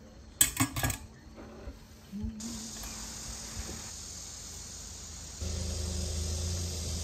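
A few sharp clicks near the start, then a steady high-pitched insect chorus of crickets or similar. About five seconds in, a low steady hum joins it.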